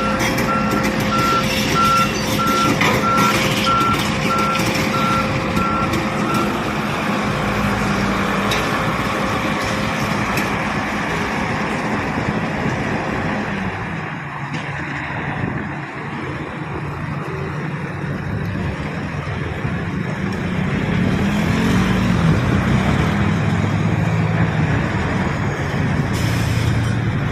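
Volvo excavator's diesel engine running at a construction site, with a backup alarm beeping at an even pace for about the first six seconds. The engine note drops about halfway through and rises again later.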